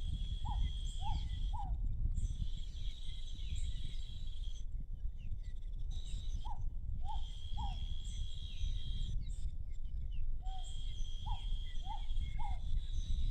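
A bird calling in sets of three short, falling notes, a set about every five seconds, over a steady high-pitched insect trill and a constant low rumble.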